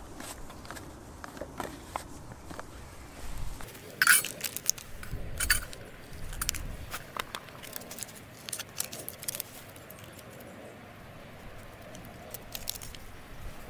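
Light metallic clicks and clinks from hands handling a tin can's lid and small metal items, sharpest about four and five and a half seconds in, with a run of quicker ticks in the middle.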